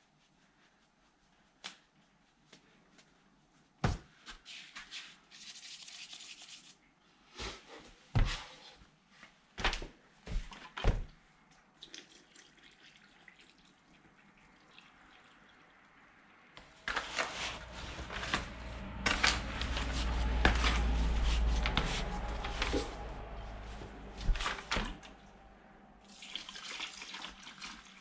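Water poured from a plastic watering can into a plastic bucket of instant mortar, with several sharp knocks of handling. There is a long, loud rushing stretch with a deep rumble in the middle, and a thin hissing pour again near the end.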